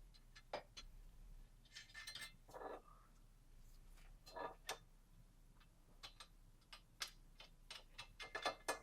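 Faint, scattered clicks and light metallic clinks of exhaust pipe parts and hardware being handled and fitted, with a few short scrapes.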